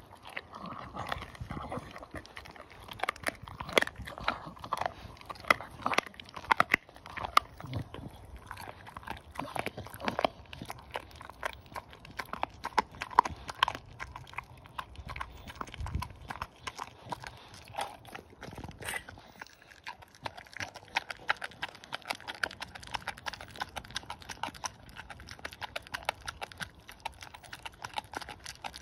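Staffordshire bull terrier puppy gnawing a raw pork trotter: a steady, uneven run of wet crunches, clicks and smacks as it chews.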